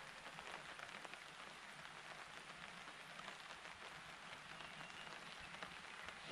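Faint, even outdoor background hiss with a fine light pattering through it.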